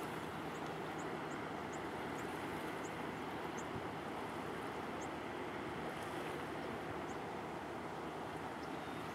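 Steady low drone of a passing Great Lakes bulk freighter, mixed with an even hiss of wind and water. Faint short high chirps come every half second or so in the first half.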